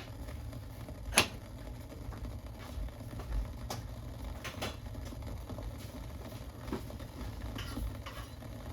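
A small pot of pear and tangerine-peel drink boiling on high heat: a steady low rumble with scattered pops and clicks, the sharpest about a second in.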